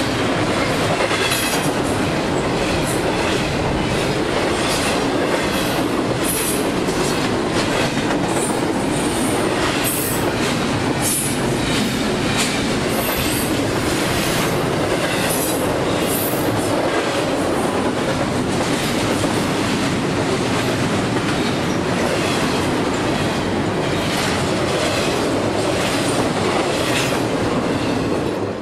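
Double-stack intermodal freight train passing close by at speed: a steady, loud rumble of steel wheels on rail with rapid repeated clicks as the wheels cross rail joints. The sound drops away at the very end as the last car passes.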